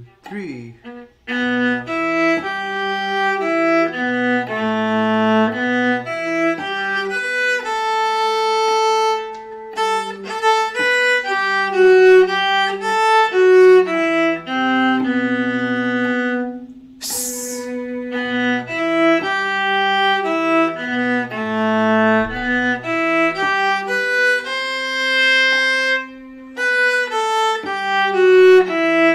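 Viola played with the bow at a slow, even tempo, a line of detached notes an octave above a cello part, with a lower line an octave beneath it. About seventeen seconds in there is one sharp hissed "Hiss!" where the score calls for it.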